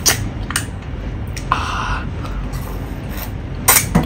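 Close-up wet mouth sounds of a big lemon being sucked and bitten: short smacks and clicks, a longer sucking sound about a second and a half in, and a louder sharp sound near the end, over a steady low hum.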